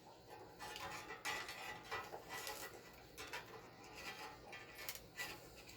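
Irregular light clicks and rattles of small hard objects being handled, with soft rustling between them.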